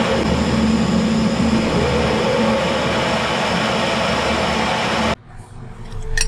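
Gas blowtorch burning, a loud steady roar of flame from the nozzle; it cuts off suddenly about five seconds in.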